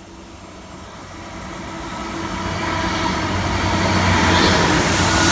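GWR Class 800 Intercity Express Train approaching and passing through the station under its underfloor diesel engines. A steady engine drone grows louder throughout, and a rushing hiss from wheels and air swells near the end as the carriages go by.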